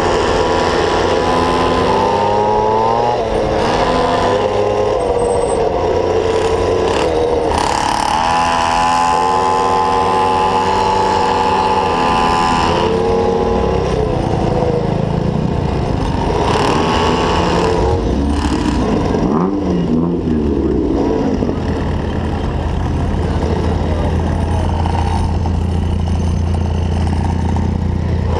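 Small two-stroke engine of a gas stand-up scooter running while riding, its pitch rising and falling as the throttle is opened and eased off.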